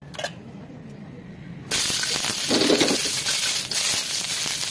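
Red and green bell pepper pieces hitting hot oil in a smoking wok: a loud sizzle starts suddenly about a second and a half in and keeps on steadily.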